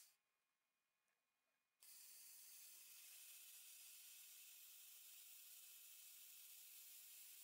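Near silence: a faint steady hiss, broken by a brief dead-quiet gap near the start.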